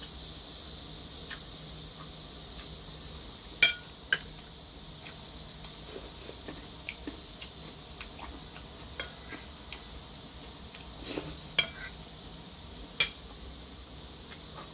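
Metal spoon clinking and scraping against a porcelain bowl while food is scooped up, in scattered sharp clinks. The loudest are a pair about four seconds in and two more late on.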